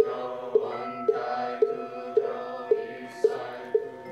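Buddhist chanting in unison by a group of voices, kept in time by a percussion beat struck evenly about twice a second.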